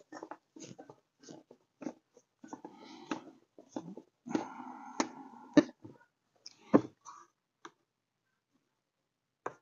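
Scattered clicks, taps and light rattles of a 10 mm wrench and metal and plastic engine-bay parts being handled while a fastener is taken off, with a few sharper knocks about five and seven seconds in.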